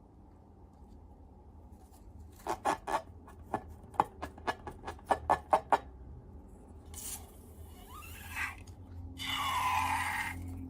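Slime-making handling sounds: a quick run of about a dozen sharp clicks and pops, then louder scraping and rubbing near the end.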